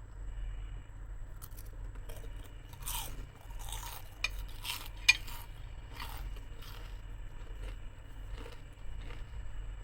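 Someone biting into and chewing crispy deep-fried squid legs (geso karaage): a run of sharp crunches in the middle, over a steady low hum.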